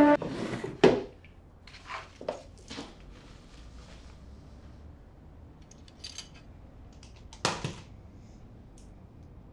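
Handling sounds of small hard objects: a few scattered clicks and knocks. The sharpest comes about a second in, lighter ones follow over the next two seconds, and another strong knock comes about halfway through.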